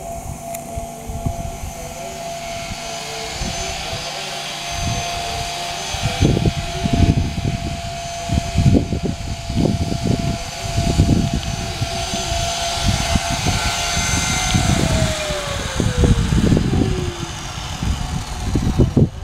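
Blade 250 CFX electric model helicopter's motor and rotors running with a steady high whine as it hovers. About three-quarters of the way through the whine glides down in pitch as the rotors slow and the helicopter settles on its floats on the water. From about six seconds in there is an irregular, gusty low rumble.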